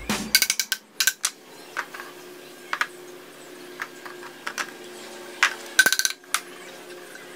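PVC pipe fittings knocking and clattering as they are handled and set down on a plywood board, each knock ringing briefly. About six seconds in comes a quick run of knocks as a wooden block taps a fitting onto the pipe to seat it without glue.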